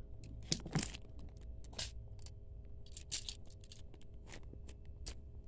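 Faint handling noises as a diecast model race car is picked up and moved by hand: a scattering of light clicks and taps with a few brief rustles.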